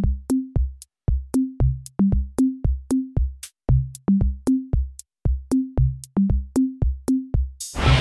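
Background music: an electronic drum-machine beat of deep kick drums and sharp clicks, evenly spaced with clean gaps between the hits. Near the end a steady rushing hiss comes in under the beat.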